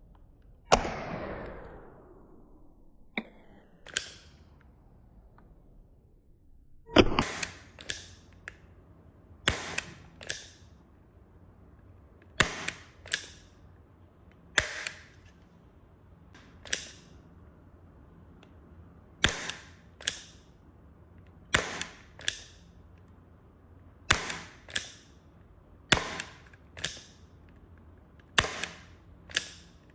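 A revolver being fired repeatedly. One loud crack about a second in has a long, falling ring-out; from about seven seconds on come pairs of sharp cracks every two to three seconds.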